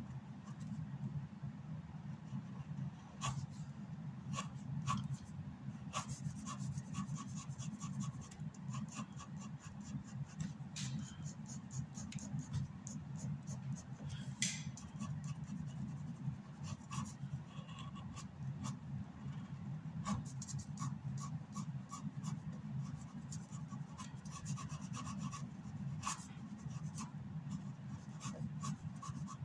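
Felt-tip pen scratching across paper in runs of short, quick strokes, over a steady low hum.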